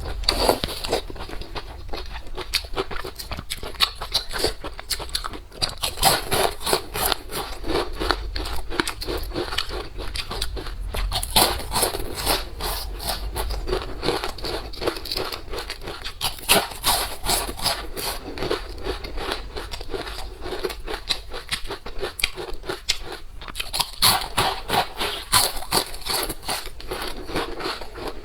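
A person eating close to the microphone: biting, crunching and chewing food, with occasional scrapes, as a steady run of many small crackling clicks.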